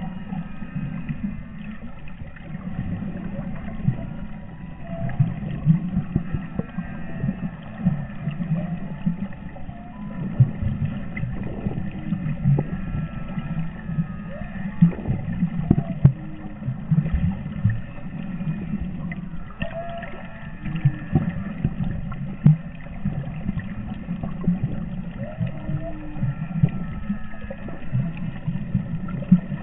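Humpback whale song heard underwater: faint calls that rise and fall in pitch, some low and some high, one after another. Under them runs a louder low underwater rumble with frequent knocks and pops.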